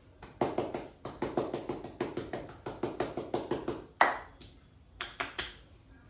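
Rapid hand strikes on a man's head during an Indian head massage (champi), about six a second, then a single louder strike about four seconds in and three quick strikes a little after five seconds.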